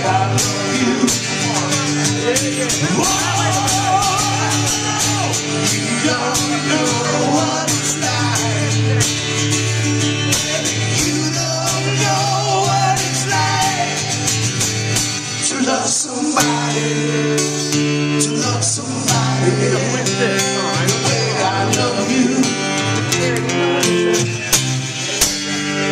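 Live song: two men singing together into one microphone over a strummed guitar.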